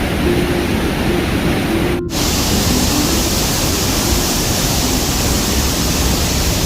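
The Rhine Falls' waterfall making a loud, steady rushing roar. It drops out for an instant about two seconds in, then comes back with more hiss.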